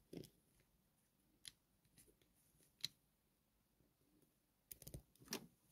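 Faint, scattered clicks and taps of vintage Lego bricks being handled and pressed together by hand, with a quick cluster of clicks about five seconds in.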